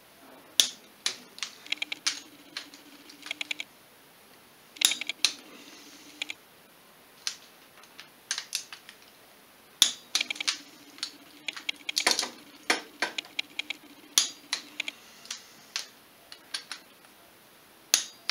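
Socket ratchet clicking in short quick runs as cylinder head bolts are run down and tightened, with a few louder single clicks in between.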